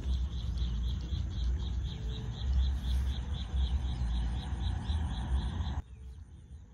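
Crickets chirping in a steady pulse several times a second, over a loud, uneven low rumble; the sound drops abruptly about six seconds in.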